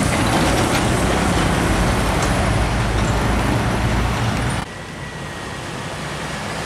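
Isuzu Giga box truck's diesel engine running loud with a steady low drone as it rounds a bend and pulls away. About four and a half seconds in it cuts off sharply to quieter road traffic noise.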